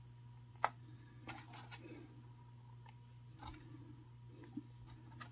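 Faint handling sounds of beading cord being pulled through a bead on a macramé board: one sharp click less than a second in, then a few softer clicks and rustles, over a low steady hum.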